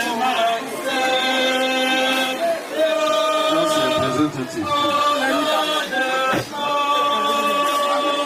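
A group of voices singing together, holding long notes in slow phrases that break about every two seconds.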